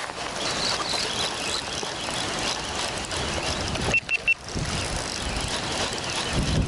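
Steady wind and wave noise at the water's edge, with low rumbles of wind on the microphone near the end. About four seconds in, three short high beeps sound in quick succession.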